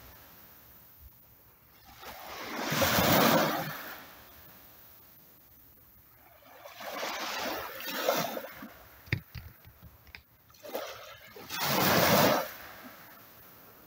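Small Baltic Sea waves breaking and washing up a sandy shore, three times, each swelling and fading over a second or two. A few short clicks fall between the second and third waves.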